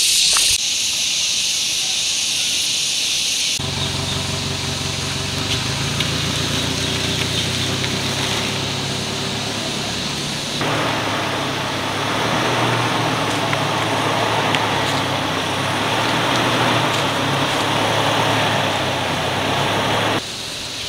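Toyota Innova MPV driving slowly along a dirt track: a steady low engine hum, joined by broader tyre noise over the dirt. The first few seconds hold a steady high hiss, and the sound changes abruptly about three and a half seconds in and again about ten and a half seconds in.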